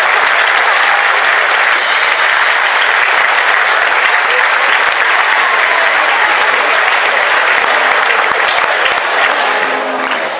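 Loud, steady applause from a large crowd clapping hands.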